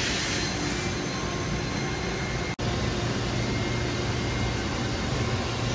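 Steady machine-shop drone: an even hiss with a low hum from running machinery. It cuts out for an instant about two and a half seconds in, and the hum is a little stronger after that.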